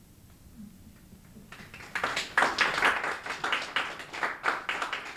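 Small audience applauding, the clapping starting about two seconds in after a short quiet spell.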